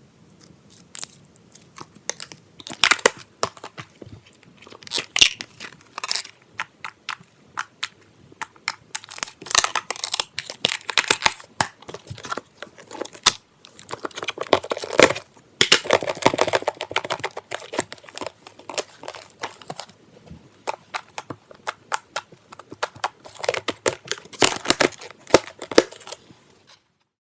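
Slime being squished and stretched by hand, giving off irregular bursts of wet popping and crackling clicks.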